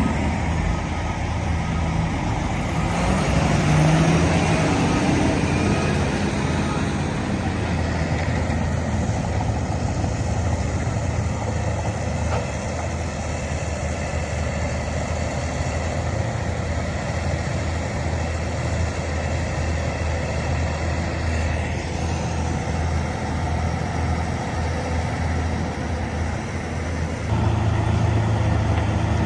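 Heavy diesel engine of construction machinery running steadily. Near the end the low engine note grows louder and deeper.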